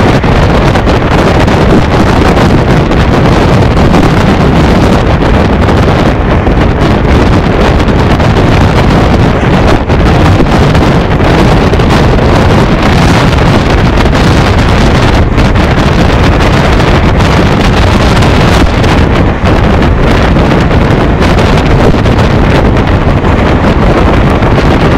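Loud, steady wind rush buffeting the microphone at the open door of a fast-moving passenger train, mixed with the train's own running noise.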